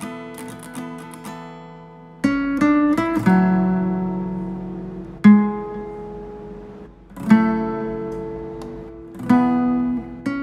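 Background music on acoustic guitar: a few light plucked notes, then chords struck about every two seconds, each ringing out and fading.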